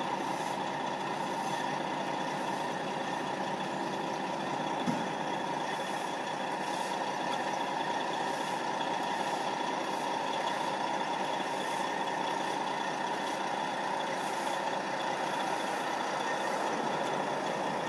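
Fire truck engine idling steadily at a crash scene, a constant drone, with a brief knock about five seconds in.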